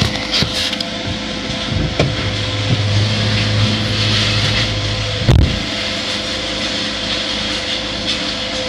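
Excavator with a grapple claw unloading scrap metal from a pickup's bed, heard from inside the truck's cab: the machine runs steadily, its low hum strengthening for a few seconds in the middle, with a knock about two seconds in and a louder clank of scrap about five seconds in.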